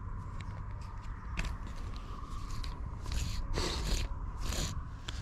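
Footsteps crunching and rustling through dry, dead reed stems on a pond bank: a few scratchy steps, coming about two a second in the second half, over a steady low rumble.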